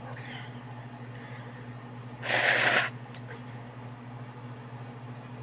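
A person's forceful breath: one short, noisy rush of air through the nose and mouth lasting about half a second, a little over two seconds in, as they try to bring on a sneeze. A steady low electrical hum runs underneath.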